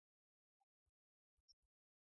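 Near silence, with a few very faint, brief clicks.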